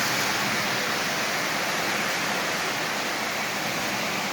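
Several model trains running together on a toy-train layout: a steady, even rushing noise of wheels rolling on the track and electric motors running.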